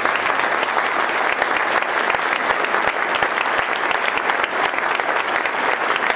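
Audience applauding steadily, a dense patter of many hands clapping at once.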